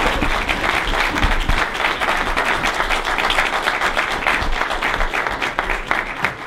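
Audience applauding: many hands clapping steadily, beginning to thin out near the end.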